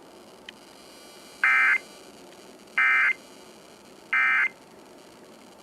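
Emergency Alert System end-of-message (EOM) data tones: three short, identical bursts of buzzing digital signal about a second and a third apart, marking the end of the alert, the close of a Required Monthly Test.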